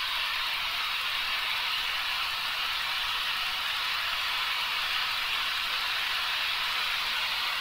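Steady, even hiss of in-flight cockpit noise heard through a Harmon Rocket II's intercom. It has little low rumble and no engine note standing out.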